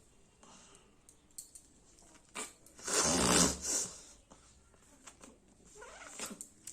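A person blowing their nose hard: one long forceful blow about three seconds in, then a shorter second blow, with small clicks and rustles around them.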